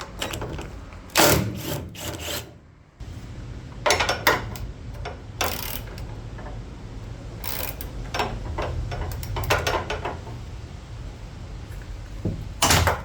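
Hand tools and loose metal parts knocking and clattering at irregular intervals while components are unbolted from a car's engine bay. A steady low hum runs underneath.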